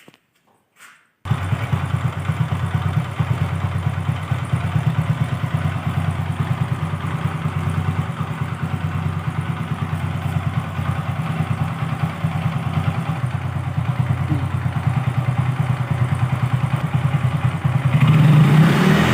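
A 2012 Hero Honda Glamour's single-cylinder four-stroke engine starts about a second in and idles steadily through its exhaust with an even pulsing beat, then revs up near the end.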